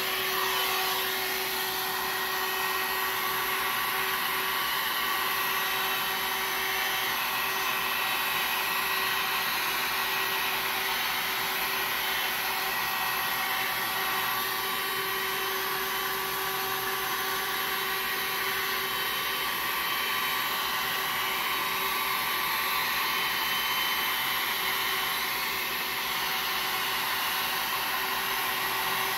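Handheld electric hot-air blower running steadily, a rushing blow with a constant hum tone, as it heats wet epoxy resin on a canvas to make it flow and move.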